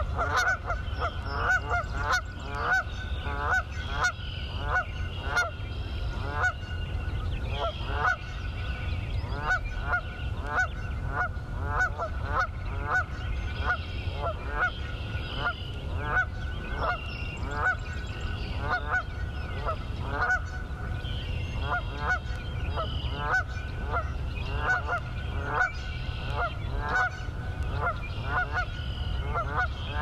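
A flock of geese honking steadily, with many short calls a second, often overlapping, over a low steady rumble.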